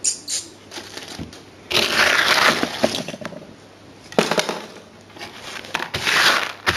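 Gritty crunching and scraping of things being handled and moved over sand-and-ballast model railway scenery close to the microphone, in several bursts with sharp clicks.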